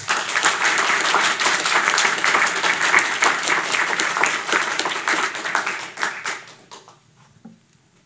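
Audience applauding, a dense patter of many hands clapping that starts suddenly and dies away about six to seven seconds in.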